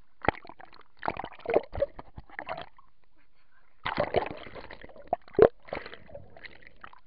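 Water splashing and sloshing around a camera that dips in and out of the water, in irregular bursts with a few sharp splashes; the sharpest comes about five seconds in.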